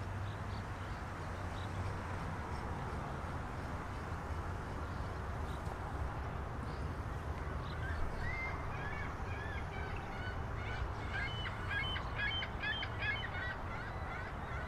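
Waterfowl honking: a run of short, repeated calls starting about eight seconds in, over a steady low outdoor rumble.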